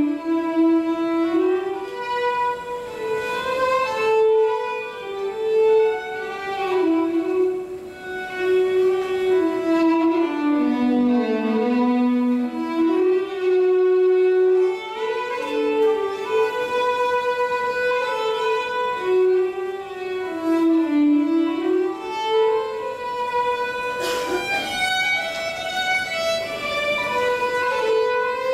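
Violin playing a slow, stepping melody of held notes, with a single sharp percussive hit near the end.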